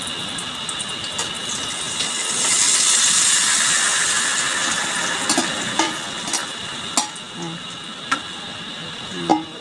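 A pot of sautéed garlic and onion sizzling up loudly about two seconds in as mung beans go into the hot oil, then easing off. Several sharp clinks of a utensil against the pot follow in the second half.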